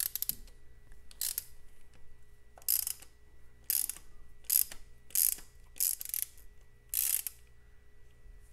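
Socket ratchet wrench clicking in about eight short bursts, one for each back-and-forth stroke of the handle, as a small set screw is backed out of a motorcycle stand pivot.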